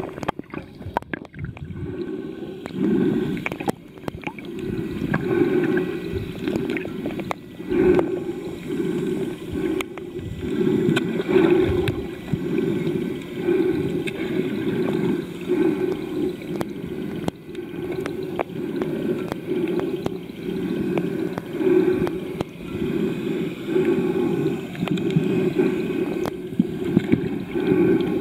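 Muffled underwater noise heard through a submerged camera: water moving and gurgling around it, swelling and fading unevenly, with a few faint ticks.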